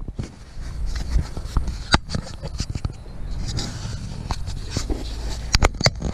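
Handling noise from a small camera being picked up, moved and turned around: scattered knocks and clicks over a low rumble, with a sharp knock about two seconds in and a quick cluster of clicks near the end.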